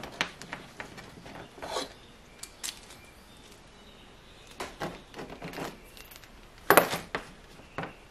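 Small parts of a methanol injection kit being handled and set down: scattered clicks, knocks and light clatter, the loudest clatter near the end.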